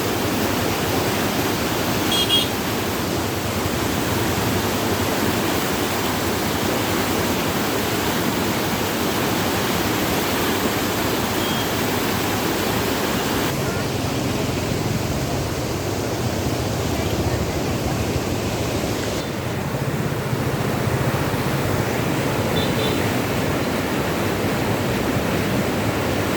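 Water pouring out of a lake in full flow, a steady rushing like a small waterfall.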